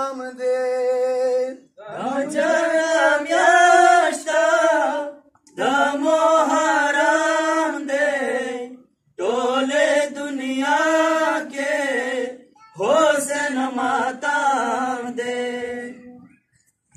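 A man chanting a Pashto noha, a mourning lament for Imam Hussain, without accompaniment. He sings five long, drawn-out phrases with short pauses for breath between them.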